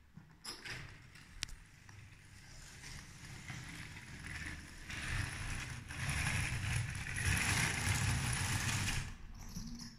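Lego 12V train running along its plastic track, a steady mechanical rattle with a low hum that grows louder and cuts off about nine seconds in. A single sharp click sounds about a second and a half in.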